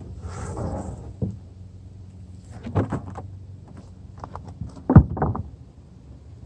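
A few sharp knocks and clatters, the loudest about five seconds in, after a short rush of noise at the start.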